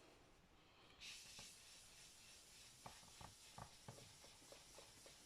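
Faint rubbing of a Stampin' Up! blending brush working ink onto cardstock, with a scatter of soft light taps from about a second and a half in.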